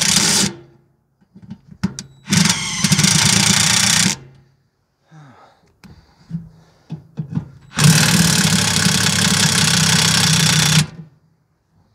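Cordless impact wrench hammering in three bursts as it undoes the bolts of the excavator's steps: a short one ending about half a second in, one of nearly two seconds, then a three-second run near the end. Faint clinks of metal fall between the bursts.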